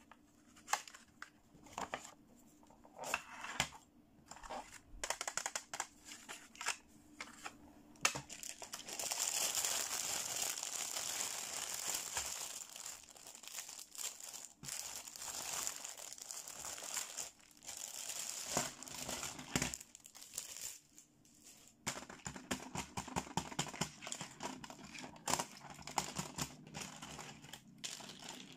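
Clear plastic packaging crinkling as hands open it and take out small pink plastic toy accessories, with light clicks and clatter of the plastic pieces. In the middle there is a long stretch of continuous crinkling.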